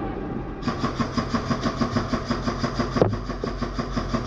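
An engine running steadily with an even pulse of about five beats a second. One sharp click lands about three seconds in.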